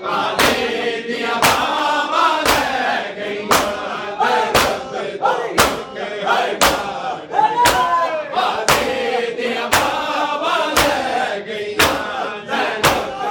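Matam: a crowd of men beating their chests in unison, sharp slaps at a steady pace of about one a second, while the crowd chants a noha refrain together.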